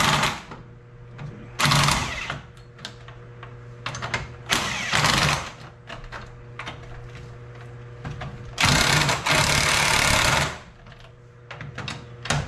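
Cordless impact wrench running lug bolts into a car wheel's hub, in three bursts: short ones about two and five seconds in, then a longer one of about two seconds near nine seconds in.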